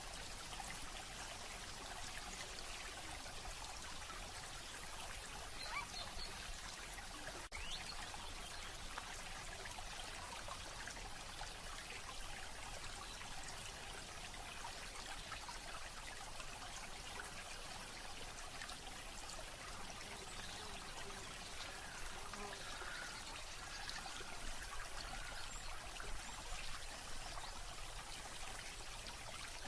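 Steady running water, like a trickling stream.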